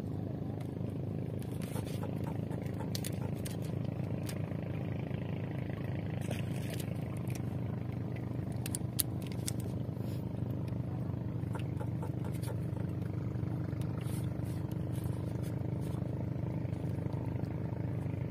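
A steady engine hum runs unchanged throughout, with scattered small clicks and scrapes of fishing tackle being handled.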